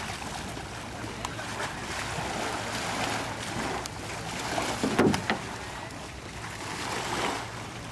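Small waves washing and lapping onto a rocky shoreline beside a floating pontoon, rising and falling in swells, with a short louder wash about five seconds in.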